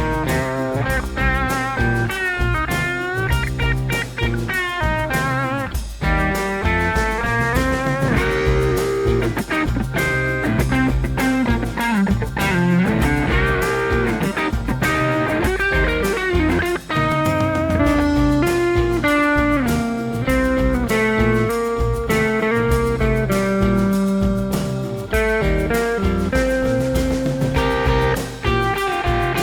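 Electric guitar solo in a bluesy style with string bends, played on Fender single-coil guitars taken in turn through a Dusky D20 tube amp set for light breakup, over a backing track. The tone changes sharply about six seconds in.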